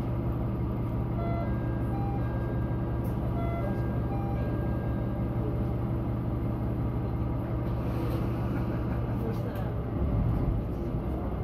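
Diesel railcar engine idling steadily, heard from inside the passenger car. About ten seconds in, the engine sound swells as the train begins to pull out.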